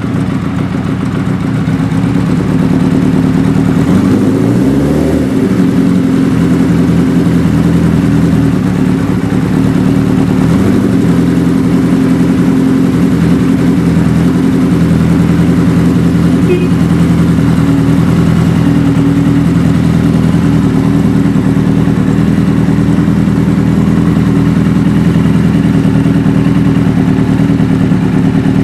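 Suzuki GS550 air-cooled inline-four motorcycle engine idling steadily. About four seconds in there is a brief blip of the throttle that rises and falls back to idle, and a smaller one a few seconds later.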